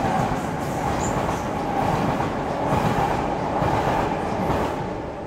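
Passenger train crossing a steel lattice railway bridge: steady rumble and wheel-on-rail noise with a humming tone running through it, fading near the end.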